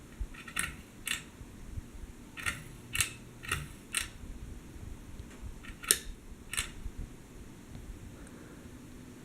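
Pull-chain switch of a Hampton Bay Huntington III ceiling fan clicking as the chain is pulled through its speed settings. About eight sharp clicks come in uneven groups: two, then four about half a second apart, then two more, over a faint low hum from the fan motor.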